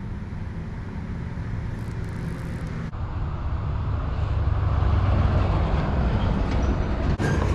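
Steady low rumble of road traffic, swelling in the middle as a vehicle passes.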